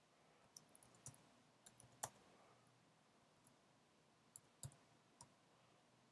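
Faint, irregular keystrokes on a computer keyboard, about ten scattered clicks with the loudest about two seconds in.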